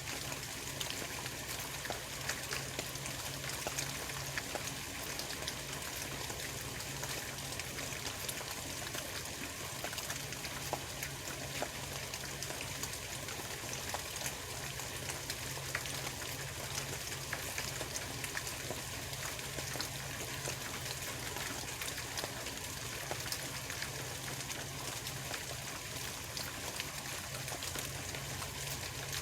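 Steady rain pattering, with many small drop ticks over a constant hiss, and a low steady hum underneath.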